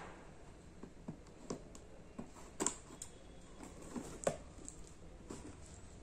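Scissors cutting open the seal of a cardboard box: scattered crinkles, scrapes and clicks, with two sharper snaps about two and a half and four seconds in.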